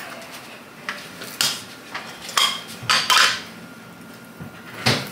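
Hard plastic knocks and clacks from a red plastic burger patty press being handled, its lid and base set down and lifted apart: several separate sharp knocks, with a longer clatter about three seconds in.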